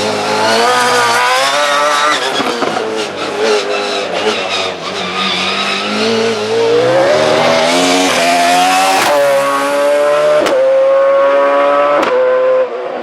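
Racing touring car engine accelerating hard. The revs climb, drop sharply at a gear change, then climb again, and the sound falls away in level near the end.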